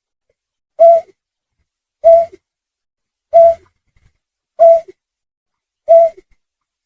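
Snipe lure call: a short, clear, low-pitched note repeated evenly about every second and a quarter, five times, each with a faint lower note just after it.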